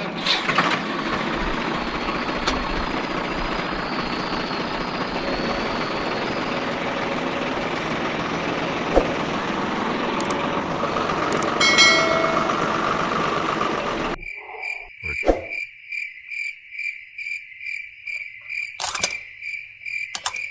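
A steady hiss that cuts off abruptly about two-thirds of the way through, giving way to insect chirping, a high pulsing trill at about two chirps a second, with a sharp click near the end.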